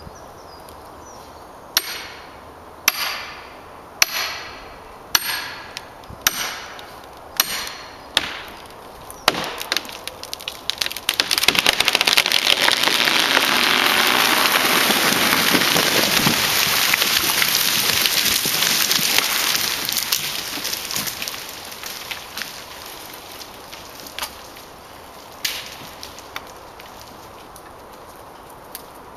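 Eight hammer blows with a metallic ring, about one a second, driving a felling wedge into a poplar's back cut; then the hinge wood crackles and splinters as the tree tips, and the falling poplar's crown rushes and crashes through branches to the ground for about ten seconds before it fades out.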